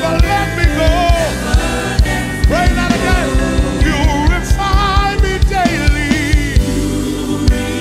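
Gospel worship music from a live band: a drum beat at about two strikes a second under a melody line that slides and wavers with vibrato.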